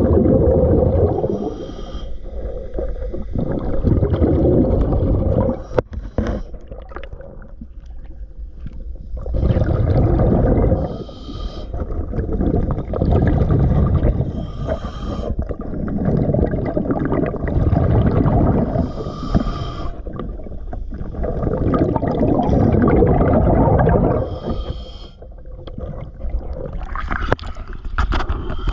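Underwater breathing of a diver through a regulator: a rumbling gurgle of exhaled bubbles swells every four to five seconds, with quieter in-breaths between.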